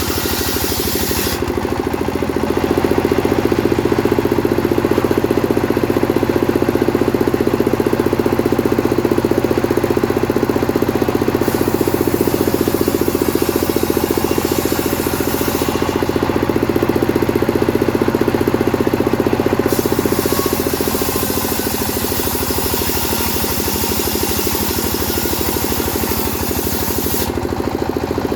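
Chainsaw engine running steadily at high speed while sawing wood, holding a constant pitch. It gets a little louder about three seconds in and eases slightly about twenty seconds in.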